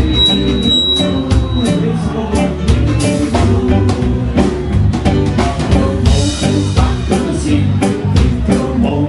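Ska band playing live: drum kit beating a steady rhythm, electric guitar, and a singer on the microphone.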